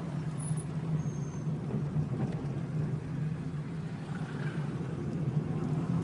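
Steady low hum of a car's engine and road noise heard from inside the cabin while driving.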